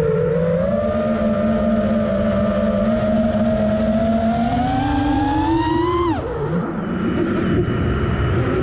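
FPV freestyle quadcopter's brushless motors whining, the pitch climbing gradually for about six seconds as the throttle is held on, then falling steeply as the throttle is chopped; after that, a rough low rush of air and faint thin high tones.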